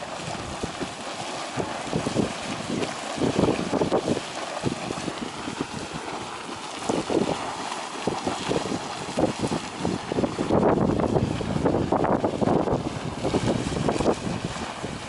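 Geyser erupting, a steady rushing, splashing hiss of water, with irregular gusts of wind buffeting the microphone.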